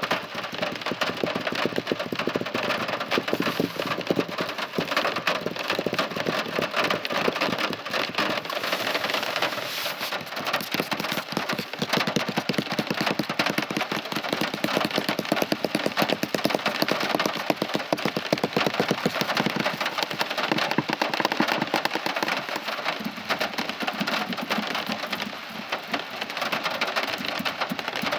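Heavy rain falling steadily, a dense rapid patter of drops striking a surface, with no thunder.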